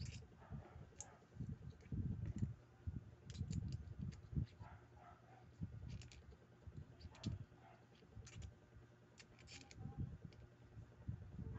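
Light, irregular clicks and taps of small metal and plastic parts of a Daiwa World Spin 4000 spinning reel being fitted together by hand, with soft low bumps from handling.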